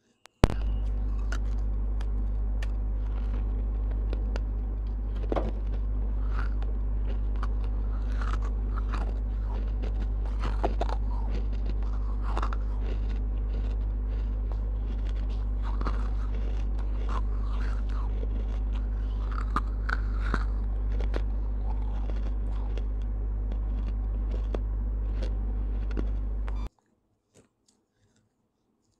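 Dry baked clay pot pieces being bitten and chewed right at a lavalier microphone: scattered crisp crunches over a steady low electrical hum. A sharp click at the start, and the hum cuts off suddenly near the end.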